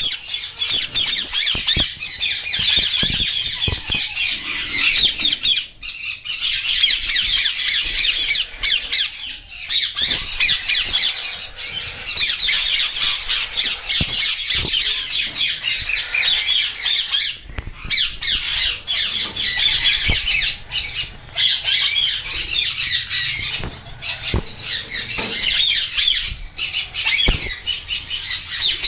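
Parrot chicks squawking continuously, many rapid, high-pitched calls overlapping as a constant chatter.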